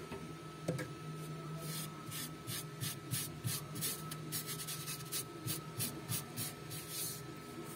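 Fingers rubbing across a freshly milled copper PCB, brushing off the milling dust in quick, even strokes at about three a second. A steady faint hum runs underneath.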